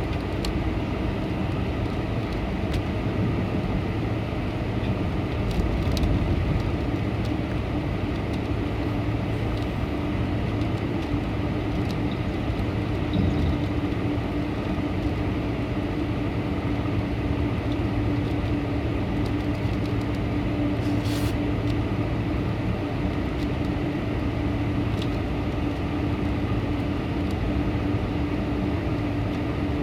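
Steady cabin noise of a Boeing 747-400 with Pratt & Whitney PW4056 engines: a constant rumble with a steady hum that comes in about eight seconds in.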